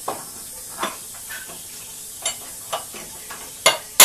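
Light metal clinks and knocks as a cast hold-down clamp is fitted over a bolt in a wooden sawhorse top, then two sharp hammer blows on the clamp near the end.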